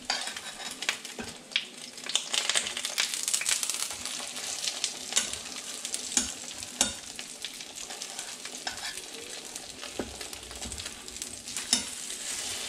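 Egg-dipped bread frying in hot oil in a pan: a steady sizzle with frequent sharp crackles from the spitting oil.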